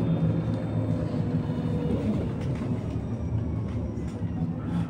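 Electric bus under way, heard from inside the cabin: a steady low rumble of tyres and running gear with a faint electric motor hum over it.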